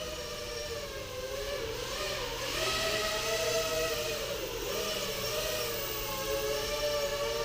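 FPV quadcopter's electric motors and propellers whining in flight, the pitch dipping and rising with the throttle about two and four seconds in, with a rush of air noise near the middle.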